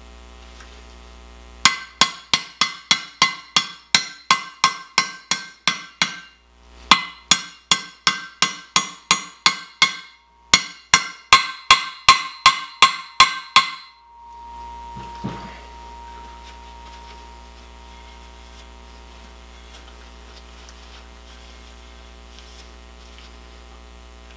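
Hammer striking a socket used as a drift, driving a wheel bearing into a motorcycle wheel hub by its outer race. The strikes come in three quick runs of ringing metallic taps, about three to four a second with short pauses between runs, then stop.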